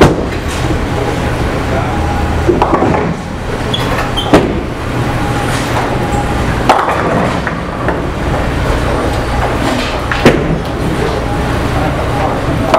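Bowling alley lanes in play: a steady low rumble of balls rolling down the lanes and the pinsetters working, broken by sharp clatters of pins being struck, at the start and four or five more times.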